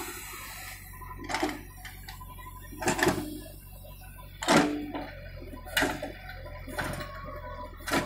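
JCB 3DX backhoe loader's diesel engine running steadily under a series of about six sharp clanks and scrapes as the backhoe bucket digs into the earth, the loudest about halfway through.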